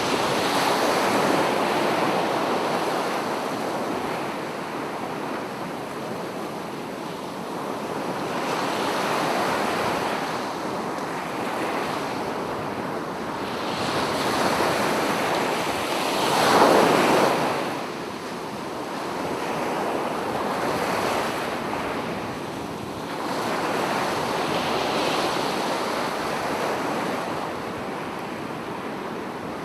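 Sea waves breaking and washing on the shore in surges that rise and fall every few seconds, with one louder wave crashing about halfway through.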